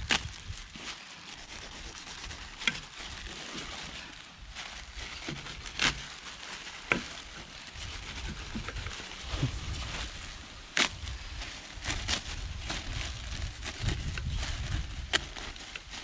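Kitchen knife cutting through a plastic bag stretched over an aluminium pot lid, trimming it around the rim. The plastic crinkles and rustles, with a sharp click of the blade every few seconds.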